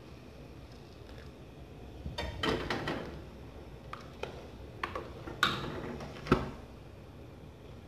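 Cooking spoon stirring rice and water in an aluminium pot, knocking and scraping against the pot: a cluster of knocks about two seconds in, then a few sharp separate clicks, the loudest near the end.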